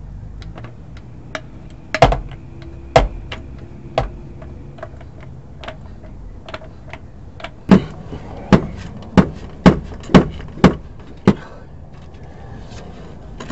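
Sharp metal knocks at a motorhome's front suspension as a shock absorber is fitted: three about a second apart, then, after a pause, a run of seven at about two a second.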